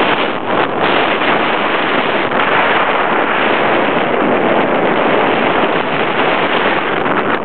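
Loud, steady rush of wind over the microphone from a hang glider's airspeed in flight.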